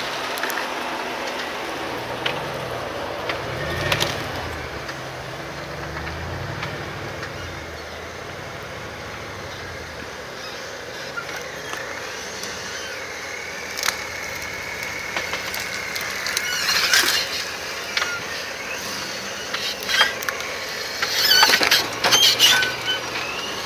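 Jeep Wrangler JK engine running at low revs, rising and falling as it crawls over rocks and a log. Scattered knocks and clicks come from the tyres and chassis, busiest near the end, and a thin high squeal runs through the middle.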